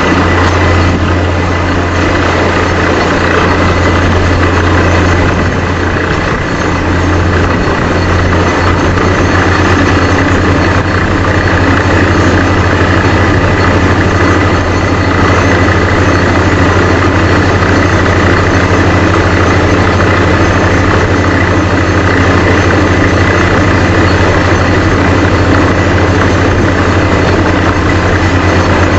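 Vesta VA650X2 diesel-driven portable screw compressor and truck-mounted drill rig running steadily under load while drilling at 400 psi. It is a loud continuous machine noise with a low hum and a steady high whine.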